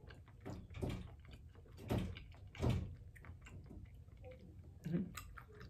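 Quiet chewing with soft mouth clicks, and four short breaths or sighs about a second apart.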